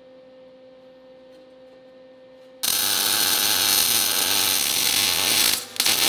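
Wire-feed (MIG) welder arc crackling steadily for about three seconds as a bead is laid on steel, starting suddenly a little under halfway through, then a second brief burst just before the end. Before the welding there is only a faint steady hum.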